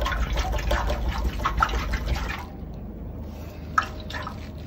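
Water sloshing and plopping inside a removed stock Subaru Forester muffler as the muffler is moved, a string of splashes for about two and a half seconds. It then goes quieter, with a single knock near the end. The water has collected inside in normal use, which is not a fault.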